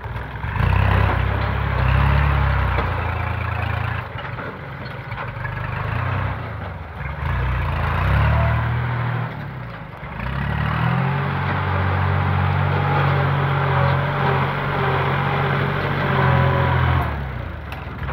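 Kubota compact tractor's diesel engine running as it pulls a disc harrow through loose soil. The engine note shifts in pitch a few times and is a little quieter between about 4 and 10 seconds, then runs steadily.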